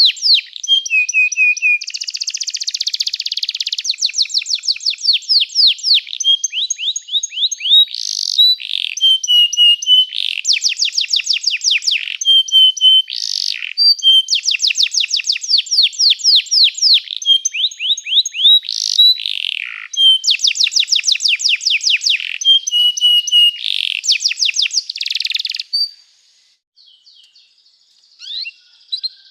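Domestic canary singing a long song of rapid trills: runs of quickly repeated notes, each run at a new pitch, with a few longer held notes between. The song stops about 26 seconds in, and a few faint notes follow near the end.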